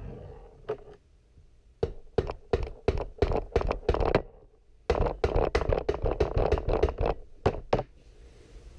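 Rubber mallet striking the cylinder of a 1985 Kawasaki KX125 two-stroke engine in two quick runs of dull blows, about three or four a second with a short pause between. The blows are meant to break loose a cylinder held on by corroded bolts.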